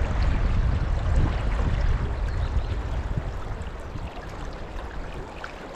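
Shallow river water running over stones, with a heavy low rumble that is strongest in the first couple of seconds and eases off toward the end.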